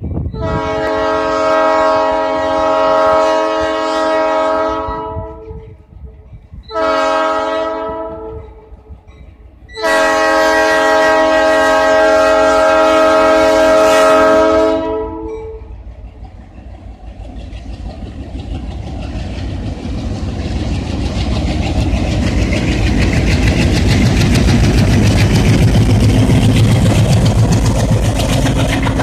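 Diesel locomotive air horn sounding for a grade crossing: a long blast, a short one, then another long blast, each a chord of several tones. Then the locomotives' diesel engines rumble, growing louder as they pass close by.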